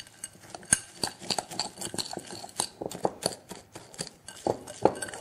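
Chopped pistachios being mixed by hand in a glass bowl: an irregular run of small clicks and rattles as the nut pieces knock against the glass, with a few sharper clicks about a second in and near the end.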